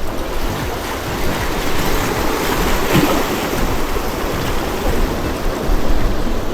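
Sea waves washing against the shore, swelling briefly about three seconds in, with wind rumbling on the microphone.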